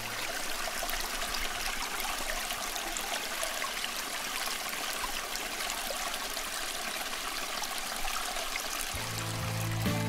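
Steady rushing hiss of flowing river water. Background music comes back in about nine seconds in.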